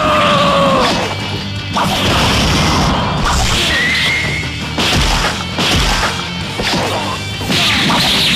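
Dubbed-in fight sound effects: a series of crashes and hits with whooshes over background music, with a falling tone at the start and a short rising tone about four seconds in.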